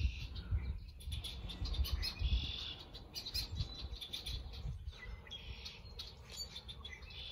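Small songbirds chirping, many short scattered calls overlapping, over an uneven low rumble that is heavier in the first few seconds.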